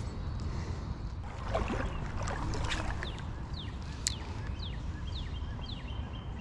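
Creek water running and splashing, with a series of short falling chirps from a bird partway through.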